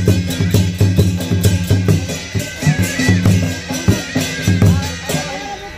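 Traditional folk music: a steady droning reed instrument over quick, uneven drum strokes, fading out near the end.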